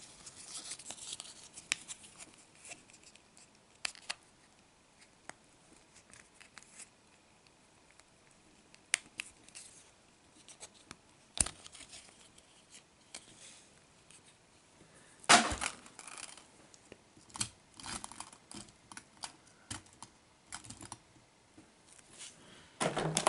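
Hard plastic pieces of a Hot Wheels crushable toy car being handled and clicked together: quiet scattered clicks and light scraping, with sharper snaps about eleven and fifteen seconds in.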